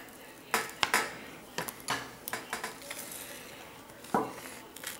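Irregular sharp clicks and light clinks, about nine in the first three seconds and a strong one a little after four seconds in. This is an iPad Air 2's display assembly and metal frame being handled as the screen is detached and lifted off.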